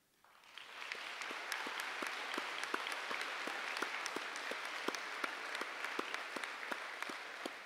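Crowd applauding: clapping builds over the first second, holds steady with individual sharp claps standing out, and eases slightly near the end.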